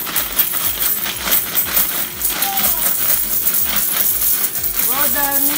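Coins rattling and clinking inside a green plastic piggy bank as it is tipped and shaken, and spilling out onto a pile of coins. The clicks come thick and fast throughout.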